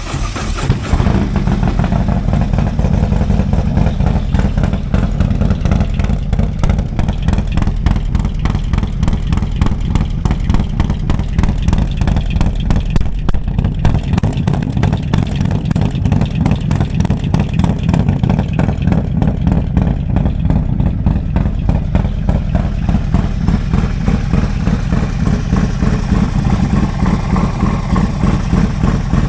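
Big-bore Harley-Davidson V-twin, built to make over 200 hp and breathing through a custom stainless exhaust, idling loud and lumpy just after a cold start, with a heavy chop to its firing.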